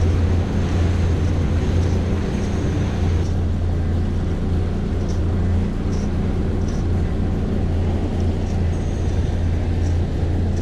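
Outboard motor on an open fishing panga running steadily under way, a constant low drone with wind and water rushing past the hull.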